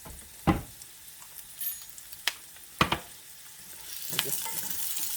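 Food sizzling in olive oil in a frying pan as it is stirred, with two sharp knocks, the louder one near the middle. The sizzle grows louder about four seconds in.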